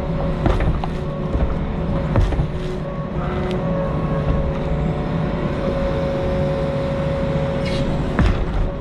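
Compact excavator's diesel engine running steadily under load, with a held hydraulic whine and scattered metallic clanks and knocks, a few of them close together near the end.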